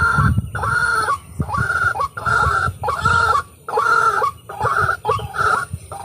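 White-breasted waterhen (ruak-ruak) giving its harsh, repeated croaking calls, about one and a half a second; they turn shorter and weaker near the end.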